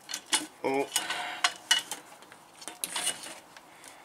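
Sharp metallic clinks and knocks, a string of separate taps with a short clatter about a second in and more near the end: tools and sheet-steel panels being handled.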